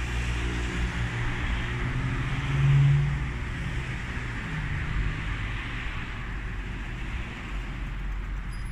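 Bumblebees buzzing at the flowers over a steady hum of town traffic; about three seconds in, a bee passes close and its low buzz swells loud for under a second.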